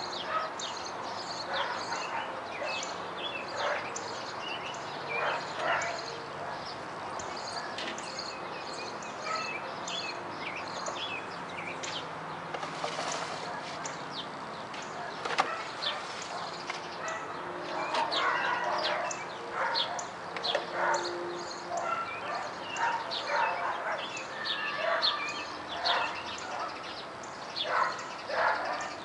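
Many birds chirping with short, scattered calls, over a steady outdoor hiss. A few sharp clinks come from food being set on the wire grate of a charcoal grill.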